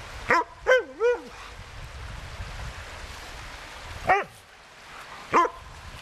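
A dog giving short, high play barks and yips that bend up and down in pitch: three quick ones in the first second or so, then one about four seconds in and another near the end.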